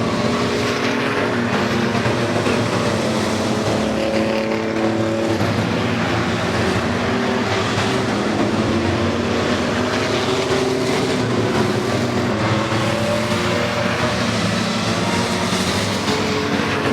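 A field of racing pickup trucks running laps together, several engines at once, their pitches overlapping and rising and falling.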